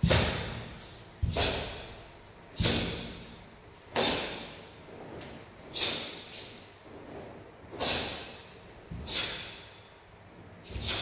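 A karateka's sharp, forceful breaths and the snap of his gi, one with each technique of the Heian Nidan kata: about eight sudden strokes, one every one to two seconds, each dying away quickly with a short echo off the room's bare walls.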